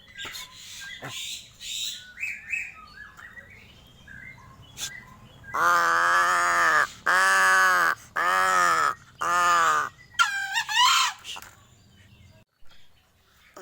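Crow calling: four loud, drawn-out caws of about a second each, then a shorter wavering call. Softer chirps and clicks come before them.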